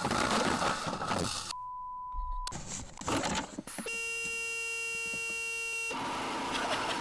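The glitter bomb bait package goes off: a hiss of aerosol fart spray, then a single steady beep about a second long, then a buzzing electronic tone for about two seconds, and a rush of noise near the end as the glitter sprays out.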